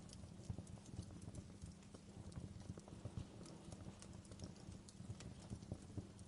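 Wood fire in a fireplace crackling quietly: irregular small pops and snaps over a steady low rumble.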